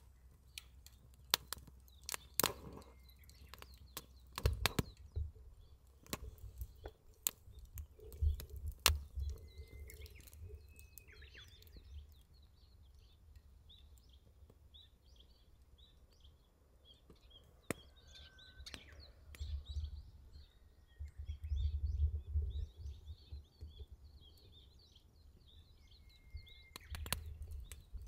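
Wood fire in a small grill crackling with sharp snaps and pops, most often in the first ten seconds. Small birds chirp and give short whistles, and gusts of wind rumble on the microphone now and then.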